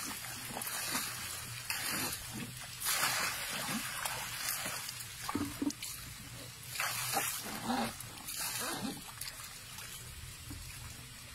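A baby Asian elephant splashing and sloshing water in a plastic tub, with irregular splashes every second or two. A few short squeaky sounds come about halfway through.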